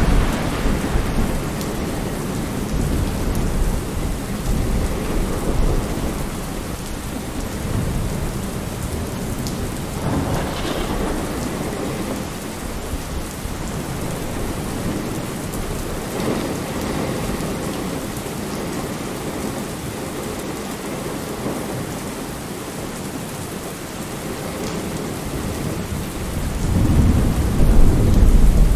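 Steady rainfall with deep, rolling rumbles of thunder, the loudest swelling up near the end.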